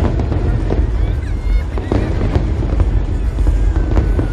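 Aerial fireworks bursting: a rapid run of sharp bangs and crackles over a deep continuous rumble, with a wavering whistle near the end.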